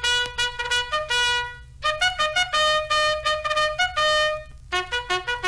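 Theme music on a trumpet: a melody of short, separate notes with a few longer held ones, pausing briefly near the middle.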